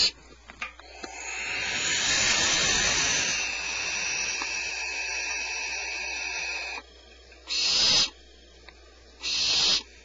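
Barn owl nestlings hissing: one long raspy hiss of about six seconds, then two short hisses a little under two seconds apart near the end.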